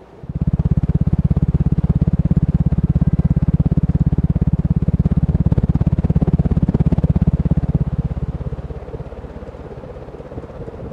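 Draft from a Hunter Studio Series ceiling fan's spinning blades buffeting the microphone: a sudden low rumble of rapid, even pulses that eases off about eight seconds in.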